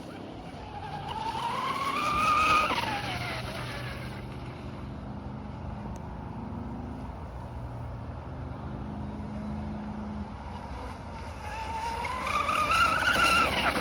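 Blackjack V2 RC boat's electric motor whining as the boat speeds past twice. Each time the pitch rises as it approaches and then drops away as it goes by: once in the first few seconds and again near the end.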